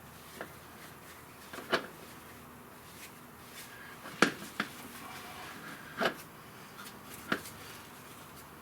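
Scattered sharp knocks of hard objects, about six in all, the loudest nearly two seconds in and just after four seconds, over a steady low background.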